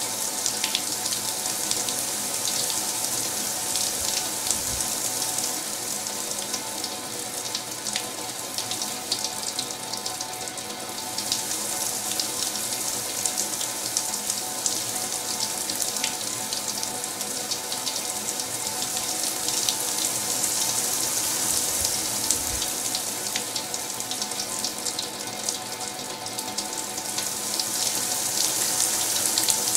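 Tap water running steadily into a basin as it fills: a dense splashing hiss full of fine crackles, with faint steady tones underneath.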